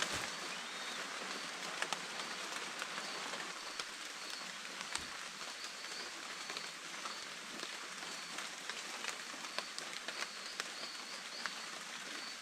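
Steady rain falling on forest foliage: an even hiss with scattered sharp ticks of individual drops. Over it, a short high chirp repeats about once a second.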